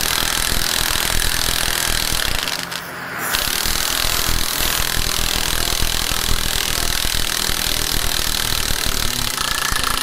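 Cordless impact wrench hammering rapidly on a gear puller's forcing screw, with the rushing hiss of an oxy-acetylene rosebud torch heating the hub: a seized pump impeller being forced off its motor shaft. The hammering dips briefly about three seconds in.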